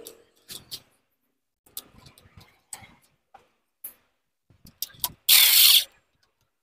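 Small metal clicks and knocks of clutch springs and bolts being handled, then, about five seconds in, a short burst of roughly half a second from an impact wrench spinning a clutch spring bolt in.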